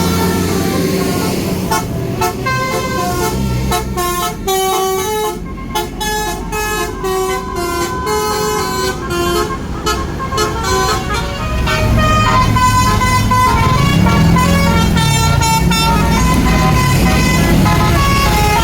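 Tour bus 'basuri' telolet musical horn playing a tune of short notes stepping between pitches, then, about two-thirds of the way through, a louder wavering siren-like wail rising and falling in pitch.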